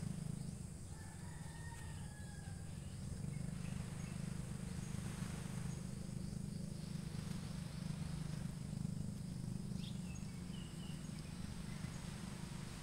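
Evening ambience: a steady low rumble under a steady high insect drone. A drawn-out bird call comes about a second in, and a short bird chirp near the end.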